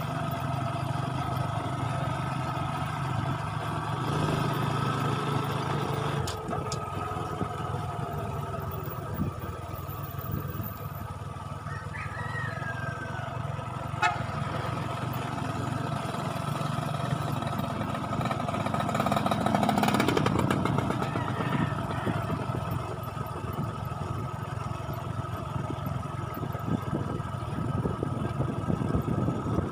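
Motorcycle engine running at a steady cruise, heard from on the bike, with a brief swell in loudness about two-thirds of the way through.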